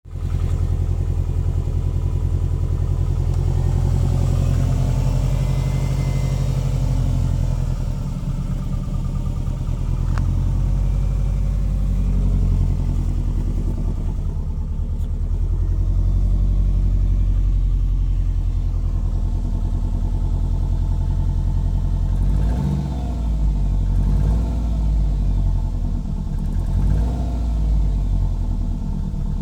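Subaru Forester S/tb's turbocharged flat-four engine running cold, with a slapping noise. It is blipped a few times near the end. The owner does not know what causes the slap.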